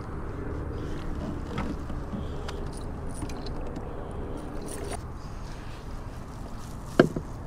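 A white bass being netted and brought aboard a plastic kayak: a steady low rumble of water and air against the boat, a few light clicks and rattles of the rod, reel and net, and one sharp knock on the hull about seven seconds in.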